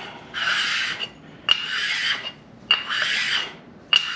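A sharpening stone scrubbed in repeated strokes across the deck face of a 6.0 LS engine block, a rasping scrape about once a second. Each stroke starts with a sharp click as the stone takes hold.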